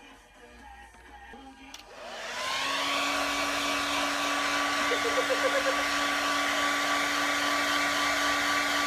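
Hair dryer switched on about two seconds in, its whine rising as the motor spins up, then blowing steadily.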